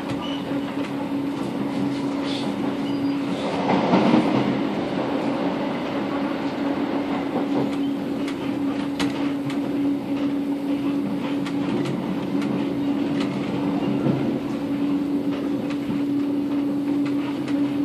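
Interior of a Thameslink electric train running along the line: a steady hum over the rushing wheel-and-rail noise, with scattered clicks from the track. The noise swells louder about four seconds in.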